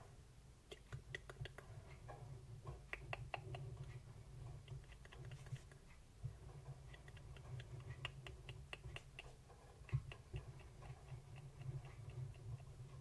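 Fine-tip liner pen drawing on paper right under the microphone: an irregular run of small scratches and ticks as the nib traces tiny loops and circles.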